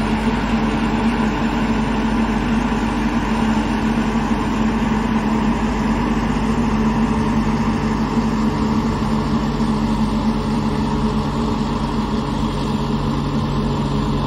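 Cummins diesel engine of a 2014 SkyJack ZB2044 telehandler idling steadily, a constant low hum that holds one pitch.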